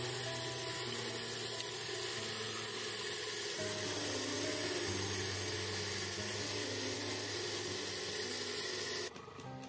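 Lathe turning a small wooden spindle while a chisel cuts into its end, a steady hiss of wood being cut, under background music with held chords. The sound drops out suddenly near the end.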